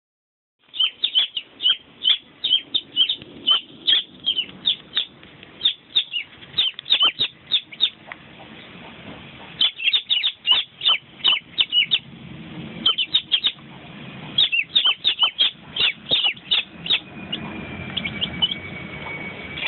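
Young chicks peeping in a plastic bucket: many short, high peeps come in quick bursts with brief lulls. A faint steady high tone joins near the end.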